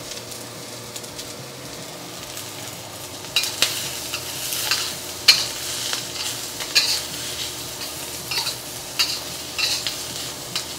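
Sliced shiitake mushrooms, carrots, garlic and green onions sizzling in hot oil in a carbon steel wok. From about three seconds in, a spatula stirs and tosses them, scraping and knocking against the wok in quick irregular strokes over the sizzle.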